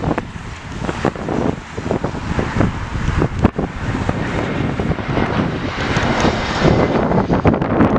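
Jet airliner engine noise mixed with heavy wind buffeting the microphone.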